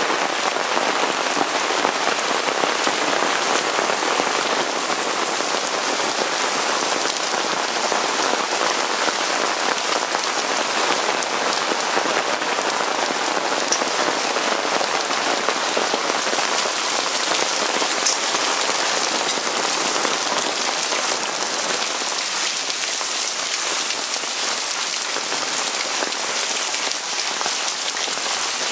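Hailstorm: hailstones falling steadily, a dense even patter of stones striking the ground, easing a little in the last few seconds.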